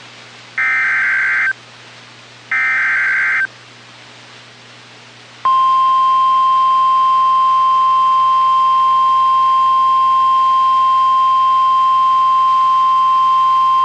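The last two of three NOAA Weather Radio SAME header data bursts, warbling digital chirps about a second each. After a two-second gap, the steady single-pitch warning alarm tone starts about five and a half seconds in and holds. Together they are the alert signal for a new severe thunderstorm warning.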